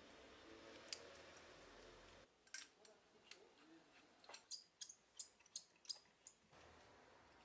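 A run of sharp, light clicks, about two to three a second, following a faint steady hiss that cuts off a little over two seconds in.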